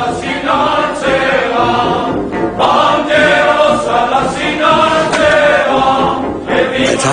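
Choir singing in three long phrases of held notes, with short breaks between them.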